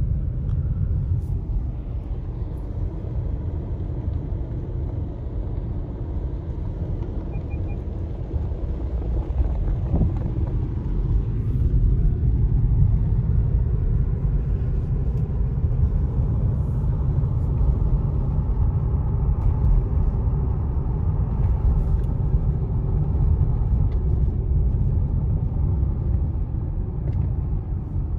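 Steady low rumble of a car driving on a snow-covered road, heard from inside the cabin: engine and tyre noise, a little louder from about twelve seconds in.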